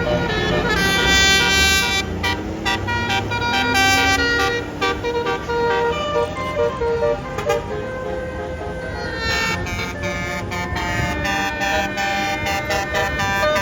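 A bus's multi-note basuri 'telolet' horn playing a tune of short, quickly changing notes, with a lull of a few seconds midway before the notes start again, over passing road traffic.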